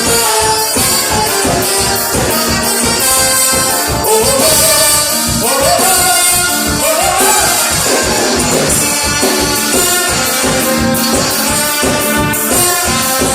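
Loud, upbeat Latin-style music with a steady percussion beat, brass and singing.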